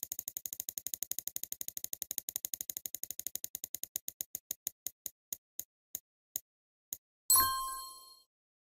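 Spinning prize-wheel sound effect: fast ticking clicks that slow steadily as the wheel winds down to a stop. A short bright chime about seven seconds in marks where it lands.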